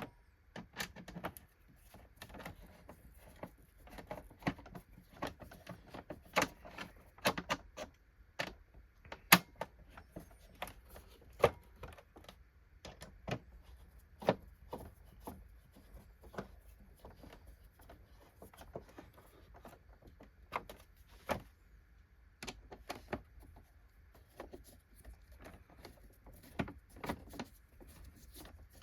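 Irregular clicks and knocks of a screwdriver and plastic vacuum parts being handled as screws are tightened into the brush plate of a Hoover Windtunnel upright vacuum.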